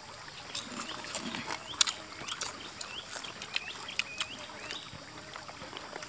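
People eating with their hands: chewing and lip-smacking, with many short sharp clicks and small rising squeaks.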